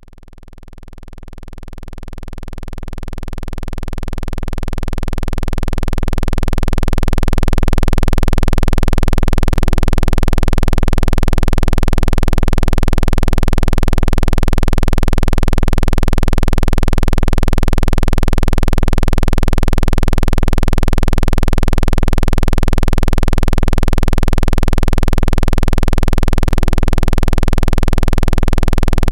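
Speaker-cleaning water-eject sound: a continuous, deep, low-pitched electronic hum meant to vibrate a phone speaker's membrane and push trapped water out. It fades in over the first several seconds, then holds level.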